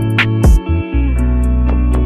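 Background music: guitar over a held bass note and a drum beat.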